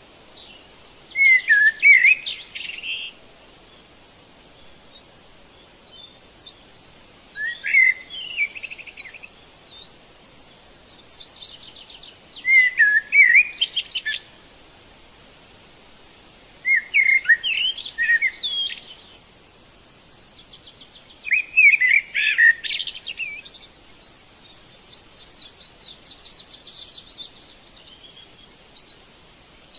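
Songbird singing loud phrases of quick trills and notes, each about two seconds long, repeated every four to five seconds, with softer chirps from other birds in between.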